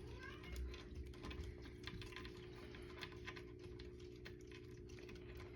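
Irregular light clicks and metallic taps as the cuckoo clock's weights are hooked onto their chains, over a steady low hum.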